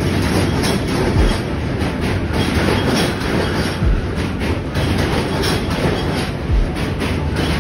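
New York City subway train rolling across the steel Manhattan Bridge close by: a loud, steady rumble of wheels on rails with many sharp clicks through it.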